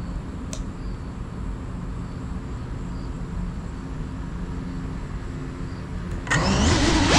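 Steady low background rumble with a faint click, then, about six seconds in, the brushless motors of a GEPRC Cinelog35 FPV cinewhoop spin up: a loud whine that rises and wavers in pitch as the throttle is worked before takeoff.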